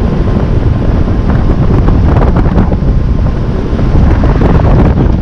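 Heavy wind buffeting the microphone over a motorboat running under way.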